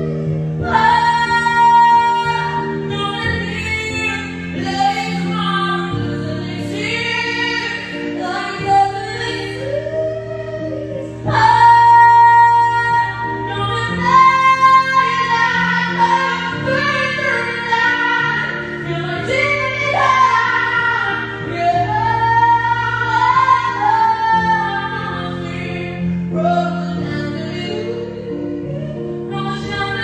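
Music: a high singing voice carries a slow melody with long held notes over sustained chords that change every few seconds.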